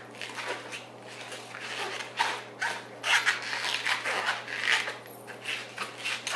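Latex twisting balloons rubbing and squeaking against each other and the hands as they are bent and twisted into shape, in short irregular scrapes.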